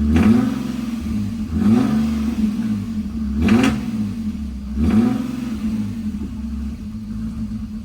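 BMW M54 inline-six in an E46 revved in four short blips, each rising and falling back, then settling to an idle, through a side-exit exhaust. The engine is missing, misfiring on some cylinders.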